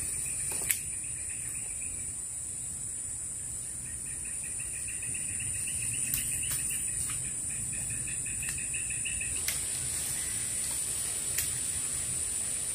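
Steady high-pitched insect drone, with a quieter rapid pulsing trill that comes and goes and a few sharp clicks, the loudest less than a second in.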